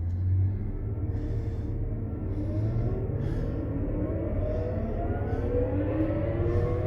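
Combine harvester's engine running under load, its pitch rising slowly and steadily over several seconds.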